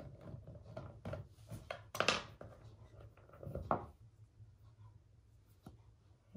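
Small knocks, scrapes and rustles of hands handling a screwdriver and small screws against a plastic kayak hull and its transducer bracket. The sounds are busiest in the first four seconds and loudest about two seconds in.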